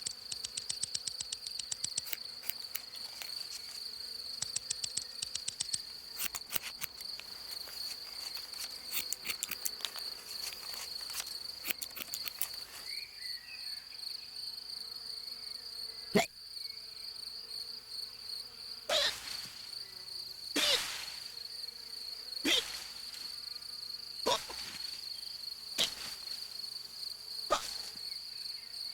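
Cartoon insect sound effects. A steady high, cricket-like trill runs throughout, with fast clicking in the first half. From about halfway on come short, sharp hiccups, seven in all, roughly every two seconds.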